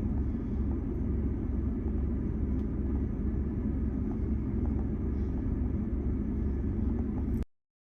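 Steady low rumble of a car heard from inside the cabin, with no voices over it. It cuts off suddenly about seven and a half seconds in.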